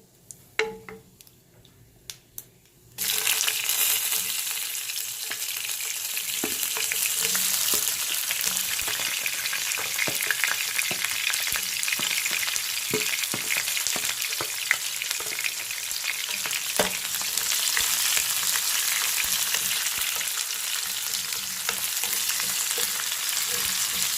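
Chopped onions and whole spices sizzling in hot oil in a cooking pot. The sizzle starts suddenly about three seconds in, with a spoon clicking against the pot as they are stirred. Before that there are only a few light clicks.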